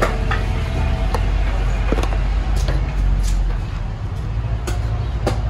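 A metal skimmer scraping and scooping rice in a large cast-iron pilaf cauldron and tipping it into a plastic bowl, with scattered sharp scrapes and clinks. Under it runs a steady low rumble.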